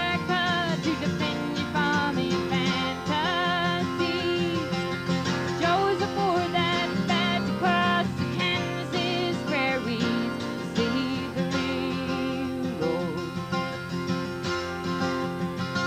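A woman singing a country-folk song with vibrato, accompanied by her own strummed acoustic guitar.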